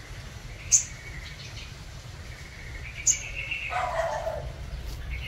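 Caged sunbird calling: two short, sharp, high chirps about two seconds apart, with a longer, lower chattering call between and after them.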